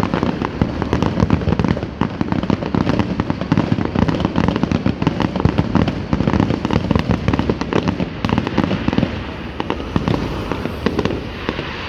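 Fireworks display going off in a dense, rapid barrage of cracks and bangs, many a second, thinning slightly near the end.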